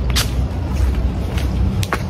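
Steady low rumble of wind and handling noise on a handheld phone's microphone, broken by three short sharp crackles, the first just after the start and two close together near the end.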